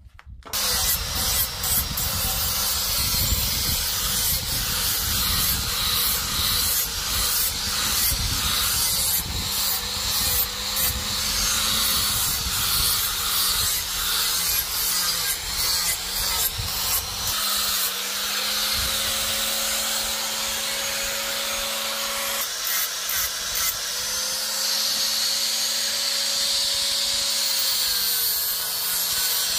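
Electric grinder running continuously with its abrasive grinding against the work, a loud hiss over the motor's hum. The motor's pitch sags and recovers several times as pressure on the work changes.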